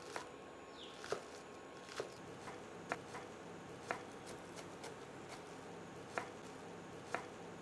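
Chef's knife slicing spring onion, red chili and shallot on a wooden cutting board. The blade knocks faintly and sharply on the board about once a second, with lighter taps between.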